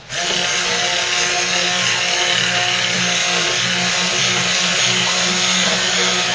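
Stick blender running steadily, submerged in a deep batch of soap oils and lye solution and being moved in small circles to blend the raw soap batter.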